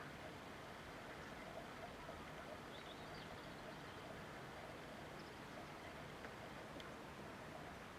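Faint steady outdoor air ambience, an even hiss, with a few faint bird chirps about three seconds in.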